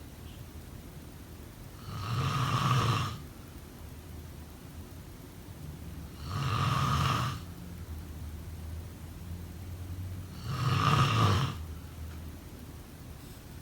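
A person snoring: three loud snores, each about a second long and roughly four seconds apart, with quiet breathing between them.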